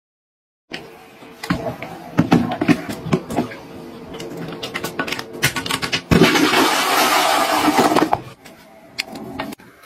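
Toilet brush scrubbing and knocking against a ceramic toilet bowl, then the toilet flushing for about two seconds from about six seconds in.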